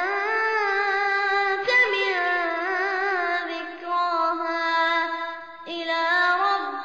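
A child reciting the Qur'an in a melodic murottal style: long held notes with wavering ornaments, and a brief breath pause about five and a half seconds in before the next phrase.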